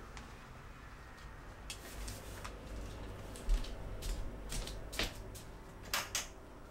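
A string of sharp clicks and light taps from things being handled, the loudest about halfway through and twice near the end, over a low rumble.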